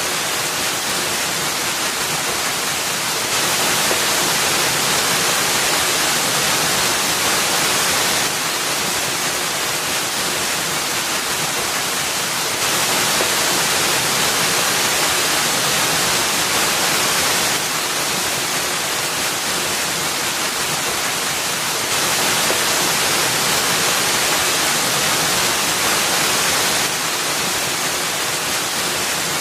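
Waterfall splashing into a rocky pool: a steady hiss of falling water, its level stepping slightly louder or softer every four to five seconds.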